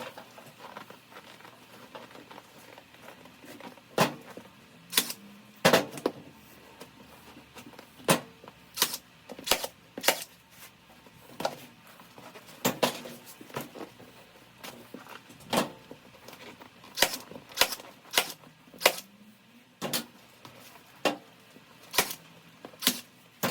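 Milwaukee staple gun driving staples through a golf cart seat cover into plastic: about twenty sharp snaps, roughly one a second, starting about four seconds in.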